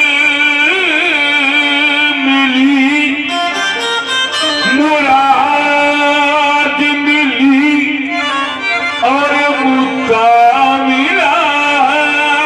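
Qawwali singing: a man's voice in long, bending, ornamented phrases over a harmonium holding steady notes.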